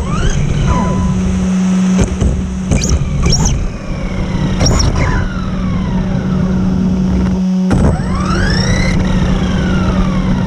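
RC car's electric motor whining in short bursts of throttle, its pitch rising and falling, then a longer rise and fall near the end. Beneath it, tyre rumble on concrete paving and a steady low hum.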